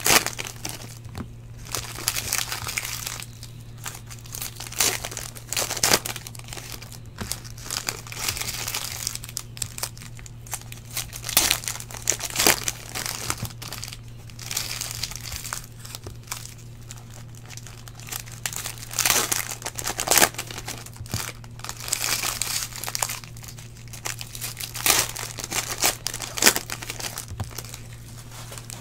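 Plastic trading-card pack wrapper crinkling as it is opened, and the cards inside being handled and stacked, in irregular bursts of rustling and light clicks. A steady low hum runs underneath.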